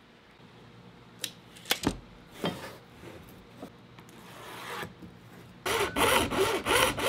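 A hand saw cutting through a sheet of cast acrylic plastic, with quick back-and-forth strokes about three a second starting near the end. Before it come a few light knocks and a short scrape.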